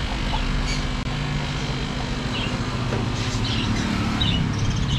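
Steady low rumble of passing road traffic, with a few short high chirps from caged birds.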